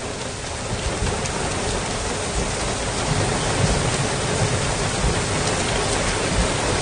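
Floodwater rushing across a wide gravel wadi in a flash flood: a loud, steady rush of noise with uneven low rumbling underneath.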